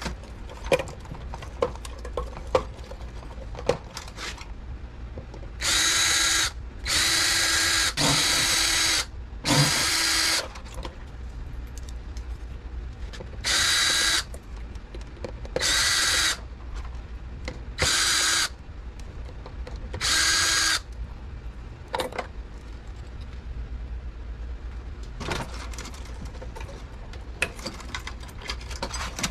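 Cordless drill running in eight short bursts of steady whine, each under about a second and a half, backing screws out of a wine refrigerator's sheet-metal control panel. Clicks and knocks of handling come before and after the bursts.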